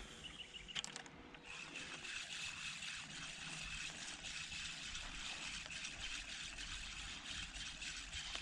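Faint, steady trickle of river water, with a thin high steady tone running over it from about a second and a half in.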